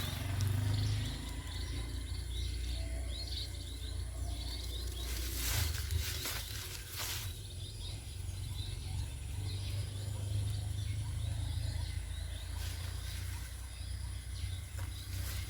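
Rural outdoor ambience of small birds chirping over a steady low rumble, with two brief rustling bursts about five and seven seconds in.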